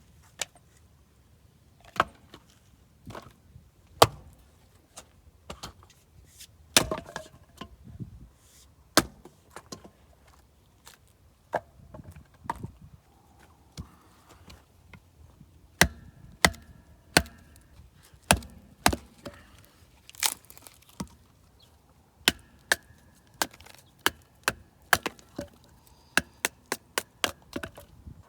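Firewood being chopped into smaller pieces for a campfire: a run of sharp wooden knocks, irregular and a second or more apart at first, then quicker, several a second, near the end.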